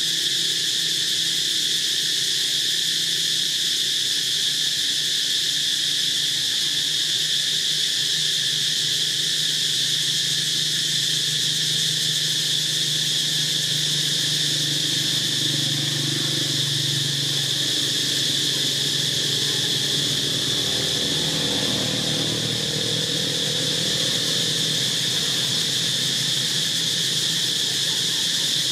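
A steady, high-pitched insect chorus droning on without a break.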